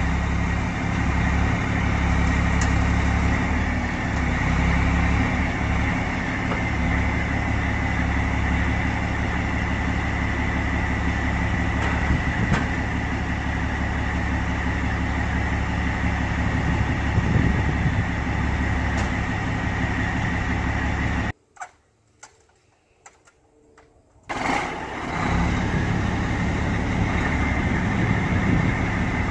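Caterpillar C12 turbo diesel engine of a crane truck idling steadily, with a steady high whine over the low engine note. About two-thirds in, the sound drops to near silence for about three seconds, then the idle resumes.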